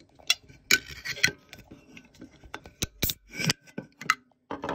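A utility knife blade clicking and scraping against the pull tab of an aluminium hard cider can as it is levered up, then the can cracking open with a short fizz about three seconds in.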